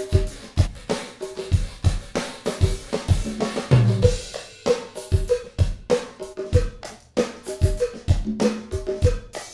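Recorded drum kit and percussion playing a steady groove, kick, snare and hi-hat, heard through a Muscle Shoals studio room-emulation reverb (IK Multimedia Fame Studio Reverb) as the room's broad and focused settings are switched.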